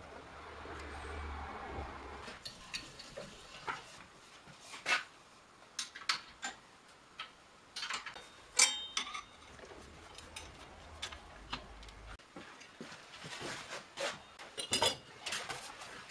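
Metal tools and lathe parts being handled: a string of irregular clicks, knocks and clinks, as on a small metal lathe's tool post and tool holder. The loudest is a ringing metal clank a little under nine seconds in, and there is a quick cluster of clanks near the end. A faint low hum comes and goes underneath.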